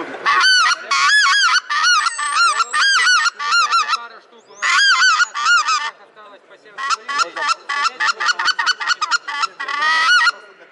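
Hand-blown goose call with an adjustable reed, played in the cupped hands to imitate goose honking. Runs of honks that rise and fall in pitch, broken by two short pauses, then a stretch of quicker, shorter notes and a final few honks near the end.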